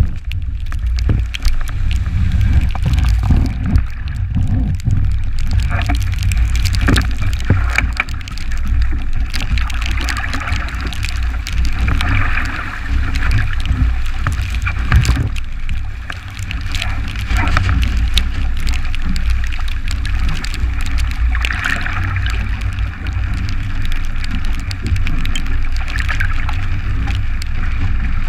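Water rushing and splashing past a 29er skiff's hull as it sails fast in strong wind, with wind buffeting the bow-mounted action camera's microphone as a heavy low rumble. Sharp hits of spray strike the camera throughout, and the rush of water swells and fades as the boat moves through the waves.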